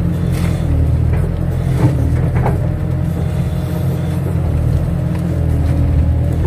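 Kato crawler excavator's diesel engine running steadily under working load, with a whine that shifts in pitch as the machine works and a couple of short knocks about two seconds in.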